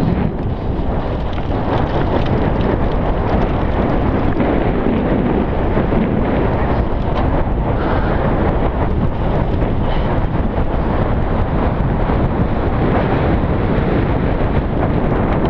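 Wind buffeting an action camera's microphone during a fast mountain-bike descent, mixed with the rumble of tyres rolling over a dirt trail. It is a loud, steady rush with no pauses.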